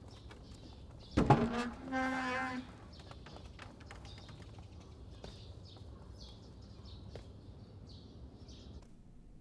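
A wooden palace door is knocked and pushed open about a second in, giving a sudden thud and then a short pitched creak that stops after about a second and a half. Faint bird chirps run underneath.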